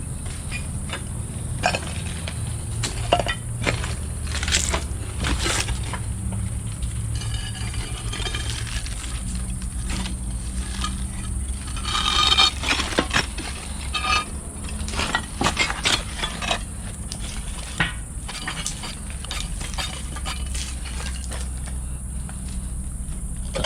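Irregular clinks and crunches of hard debris, with a denser run of crunching about twelve seconds in, over a steady low hum.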